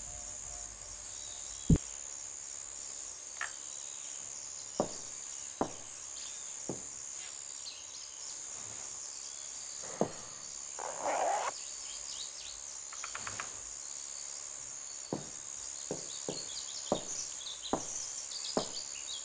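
Steady high-pitched cricket-like chirring, with about a dozen sharp clicks scattered through it, more often near the end, and a short burst of noise about eleven seconds in.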